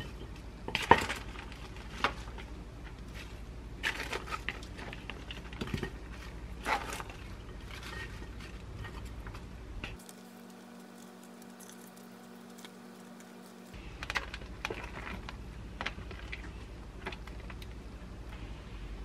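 Wooden chopsticks clicking and tapping against a plate and a paper salad bowl while lettuce leaves are lifted across and rustle, in irregular light knocks with a few sharper ones. A low steady hum runs underneath, with a quieter, smoother stretch a little past the middle.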